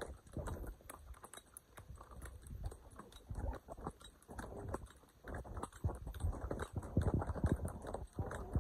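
Horse's hooves clopping at an uneven walking pace during a ride, with a louder cluster of knocks about seven seconds in.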